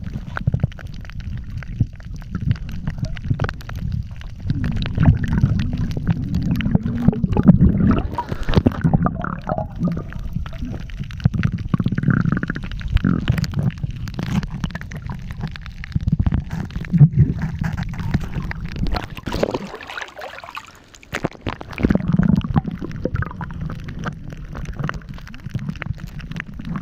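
Water sloshing and gurgling around a camera that is under or at the water's surface, heard as a muffled low rumble with scattered small clicks; it briefly drops away about twenty seconds in.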